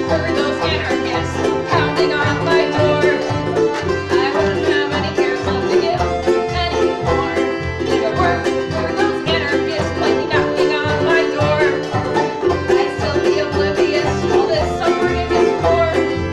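Small live acoustic band playing a song: accordion holding steady chords under strummed ukulele and plucked banjo, with a steady, even rhythm.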